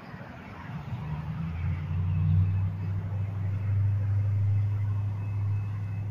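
Low, steady engine drone from an approaching Metrolink Arrow Stadler FLIRT diesel multiple unit. It comes in about a second and a half in and grows louder as the train nears.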